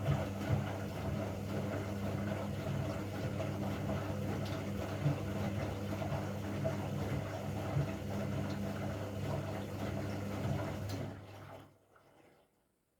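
Washing machine running: a steady motor hum with scattered light knocks. It stops abruptly about eleven and a half seconds in.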